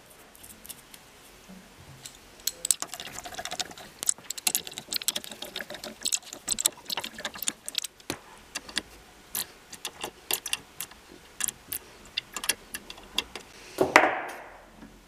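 Small metal clicks and clinks of nuts, washers and a hand tool on the bolts of an aluminium gearbox cover as they are fitted and tightened, irregular and sometimes in quick runs. A louder scrape comes near the end.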